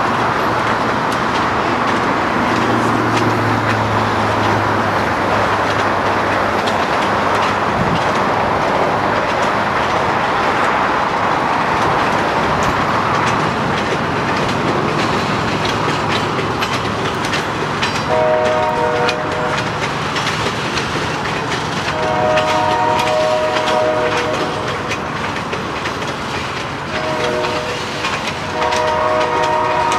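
Log-laden freight cars rolling past with steady wheel and rail clatter. From a little past halfway the train's locomotive horn sounds two long blasts, a short one and another long one, the pattern of a grade-crossing warning.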